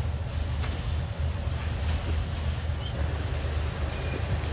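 Steady high-pitched insect drone in forest undergrowth, over a constant low rumble.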